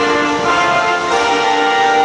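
Orchestral music: several instruments holding long, overlapping chord notes at a slow pace.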